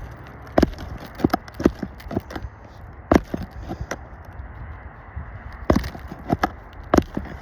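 Irregular sharp knocks and clicks of a metal roofing tool working nails loose from under asphalt shingles, about ten strikes spread over a few seconds.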